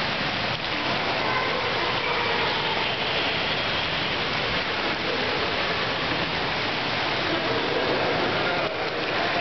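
Steady rush of water running over rocks.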